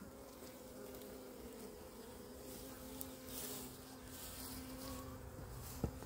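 Honeybees buzzing on an open brood frame: a steady hum of many bees, with one sharp click near the end.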